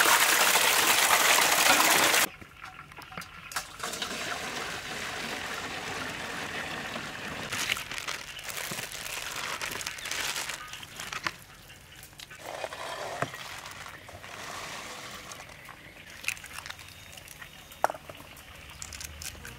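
Water pouring into a metal basin of fresh chilies, loud and steady for about two seconds before it cuts off abruptly. After that, quieter trickling, splashing and handling of wet food, with a few sharp clicks.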